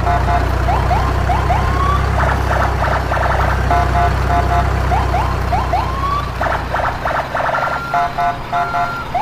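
Battery-operated toy police car playing its electronic siren sound effect: a looping sequence of short rising whoops and fast pulsing beeps that repeats about every four to five seconds, over a steady low hum.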